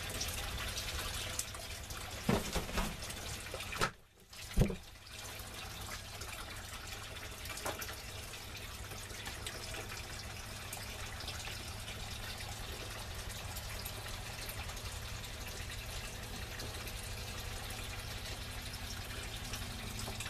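Kitchen faucet running steadily into a stainless steel sink, flushing chlorinated well water through the house lines. The flow sound drops out briefly about four seconds in, and there are a few light knocks.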